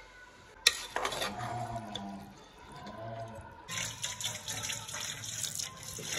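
Tap water running into a steel bowl in a stainless steel kitchen sink while hands rinse and rub leafy greens, splashing. A sharp click comes under a second in, and the water noise grows louder and brighter about halfway through.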